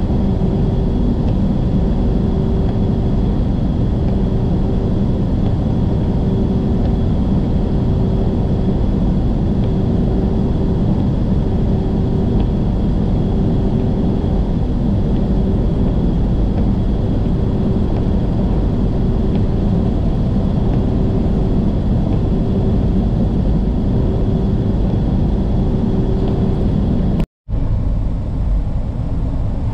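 Steady engine and road noise of an 18-wheeler cruising at highway speed, heard from inside the cab, with a low hum that pulses about once a second. The sound cuts out for an instant near the end, then carries on slightly changed.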